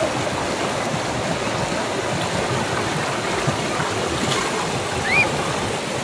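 Steady rushing of a fast-flowing forest river. A short faint chirp sounds about five seconds in.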